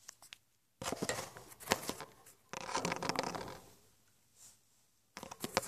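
Close rustling and scraping in three bursts with sharp clicks: handling noise as the recording phone rubs against clothing while it is being positioned.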